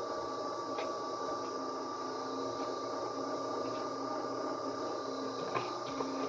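Steady hum and hiss, with a few faint taps of a steel spoon against the kadhai as spices are stirred into the thin mixture.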